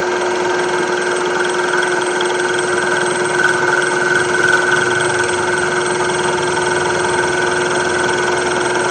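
Milling machine running with its cutter turning: a steady mechanical whine made of several held tones over a dense grinding noise, switched on just before and running evenly throughout.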